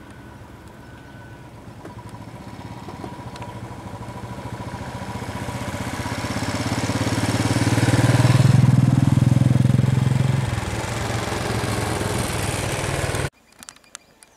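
Motorcycle engine running as it approaches and passes close by, growing steadily louder to a peak about two-thirds of the way through, then cut off abruptly near the end.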